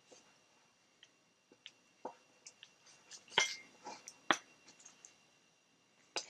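Scattered clicks and taps of hands handling a vintage violet ray device and its switch while it fails to start, with no buzz from it yet. The two sharpest clicks come about three and a half and four and a half seconds in, over a faint steady high whine.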